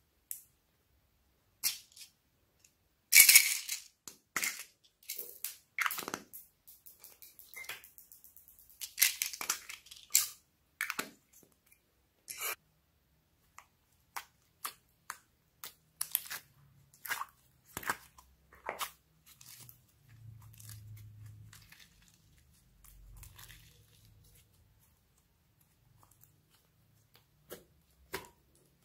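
Slime and foam clay squeezed and pulled by hand: irregular sticky crackles, pops and clicks, with a quick run of small clicks about eight seconds in.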